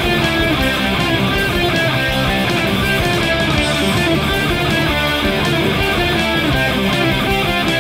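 Heavy metal band playing a loud, steady passage of strummed electric guitars with bass and drums.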